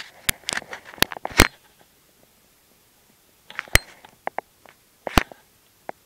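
Handling noise: a scattering of sharp clicks and knocks in two clusters, one in the first second and a half and another from about the middle to near the end, with a quiet gap between.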